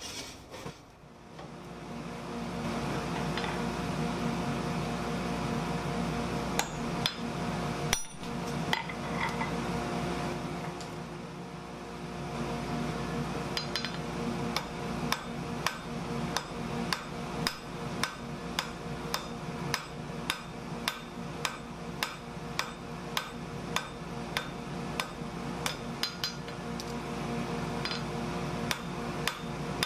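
Hand hammer striking hot steel on an anvil, about two blows a second from roughly halfway in, drawing the bar out into a thin stem. A steady hum from the forge runs underneath.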